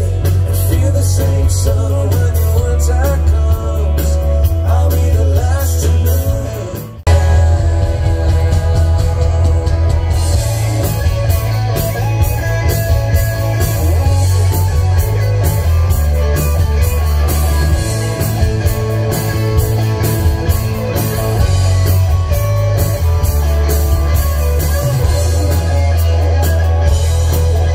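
Live rock band playing through a large concert PA, with a male lead singer, electric guitars, heavy bass and a drum kit. About seven seconds in, the music cuts briefly and picks up again on a different song.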